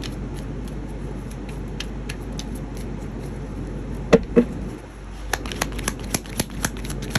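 Tarot deck being shuffled by hand: scattered card flicks, two louder knocks about four seconds in, then a quick run of flicks near the end, over a steady low hum.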